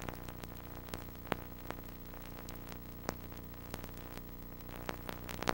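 Faint steady hiss and low electrical hum of camcorder recording noise, with scattered small clicks.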